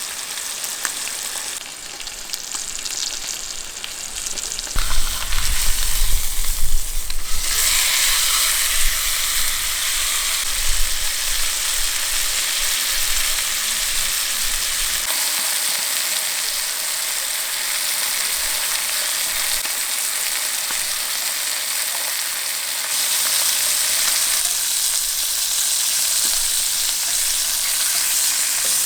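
Food frying in a hot pan with a steady sizzle that turns much louder about seven seconds in. There is low rumbling and a few knocks from handling in the first half.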